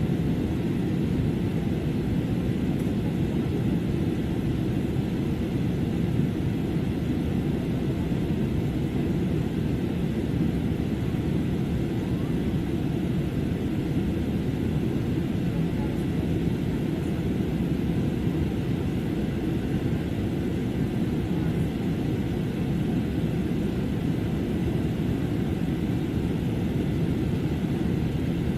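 Steady cabin noise of a jet airliner in flight: an even, low rumble of engines and airflow that does not change.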